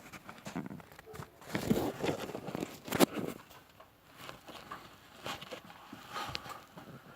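Rustling handling noises with scattered light clicks, and one sharp knock about three seconds in.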